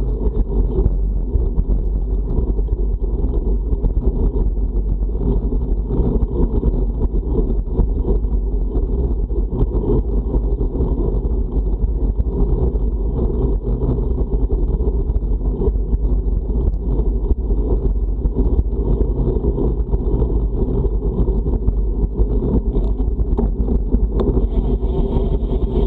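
Wind buffeting the microphone of a camera on a moving road bike, a steady deep rush with no breaks, from riding into a strong headwind.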